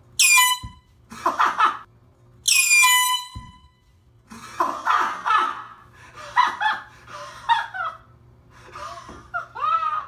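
Two blasts from a handheld air horn, the first short and the second about twice as long, with a short startled cry between them, followed by several seconds of laughter.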